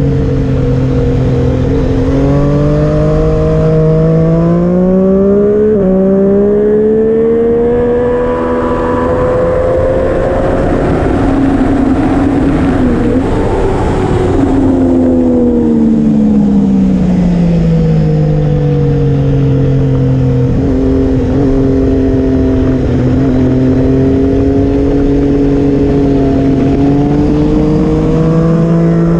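Triumph Street Triple RS's three-cylinder engine pulling hard, its pitch climbing for the first ten seconds or so and peaking around ten to fourteen seconds in, then falling away as the bike slows, holding low for a few seconds, and climbing again near the end. Wind rush runs under the engine throughout.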